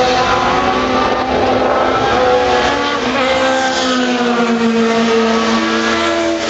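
Race cars at speed passing one after another down a straight, engines at high revs. The engine pitch slides down as the second car goes by, a few seconds in.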